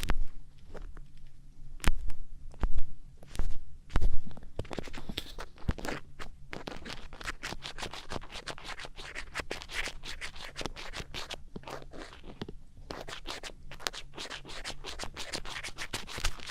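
Ear-cleaning ASMR: an earpick scratching and scraping close against the microphone. A few loud knocks come about two to four seconds in, then a long run of fast, dense scratching strokes with a brief lull near the end.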